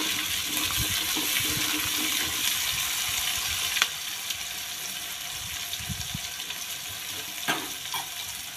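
Sliced onions and chopped tomatoes sizzling in hot mustard oil in a kadai, with a spatula stirring them at first. There is an even frying hiss, a little quieter after about four seconds, with a couple of sharp knocks about four and seven and a half seconds in.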